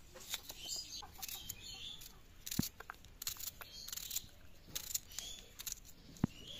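Small knife slicing through a raw red onion held in the hand: a run of crisp cuts and crunches, with a couple of sharper knocks. Birds chirp in the background.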